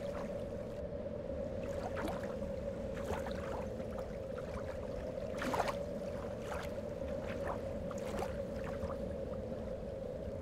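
Small drips and plops of water landing on a lake surface at irregular intervals, with one louder plop about five and a half seconds in, over a steady low hum.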